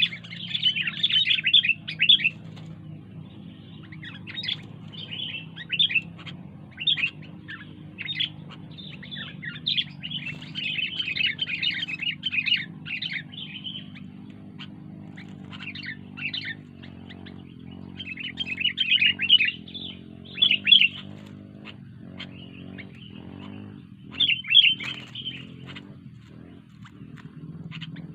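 Sooty-headed bulbul (kutilang) singing actively in bouts of quick, bright chirping phrases with short pauses between them, over a steady low hum.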